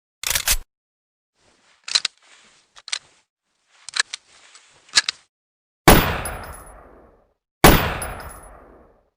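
Gun sound effects: a short quick burst of shots, then a run of metallic clicks and clacks of a gun's action being worked, then two loud single shots about a second and a half apart, each with a long fading echo.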